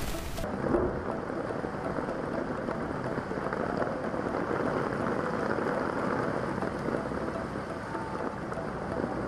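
Heavy rain falling on floodwater: a steady, muffled hiss of water, with the treble dropping away about half a second in.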